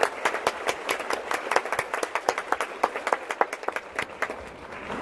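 Audience applauding, many hands clapping, the clapping thinning out near the end.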